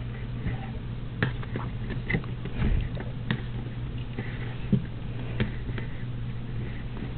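Hands tying knots in embroidery floss close to the microphone: scattered light taps and rustles of fingers and thread, with a brief low thump near the middle, over a steady low hum.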